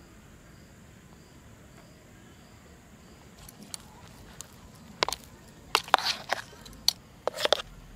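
Soft bread-and-milk ice-cream mixture being mixed and mashed in a foil tray: an irregular run of short squishing and scraping sounds starting about three seconds in, after a few seconds of faint outdoor background.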